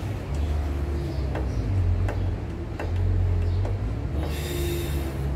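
Light metal clicks as parts on an Efco lawnmower engine's carburettor are handled and fitted by hand, four clicks a little under a second apart, over a steady low rumble. A brief hiss follows about four seconds in.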